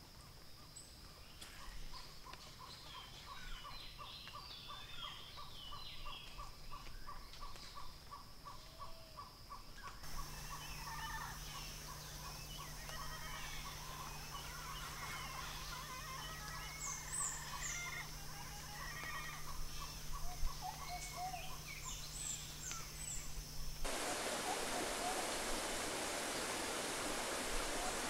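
Mixed calls of tropical forest birds: whistles and chatters over a long, fast series of evenly repeated notes. About three-quarters of the way through, the steady rush of a waterfall comes in under the birds.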